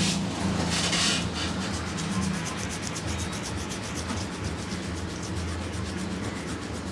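Hands rubbing briskly over skin in a head and body massage. Two louder swishes come in the first second, then a fast, even rhythm of short rubbing strokes.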